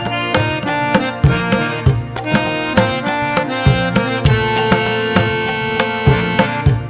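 Background music: Indian-style instrumental with tabla-like drumming at a steady beat under sustained melodic notes.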